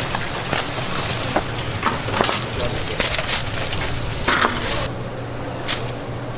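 Battered tempura sizzling and crackling in a commercial deep fryer's hot oil: a steady hiss with scattered sharp clicks, over a low steady hum.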